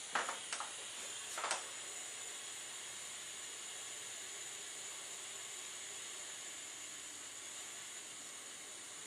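Bernzomatic butane soldering iron lit and running, its gas flow giving a steady soft hiss while the tip is tinned with solder. A few faint taps in the first second and a half.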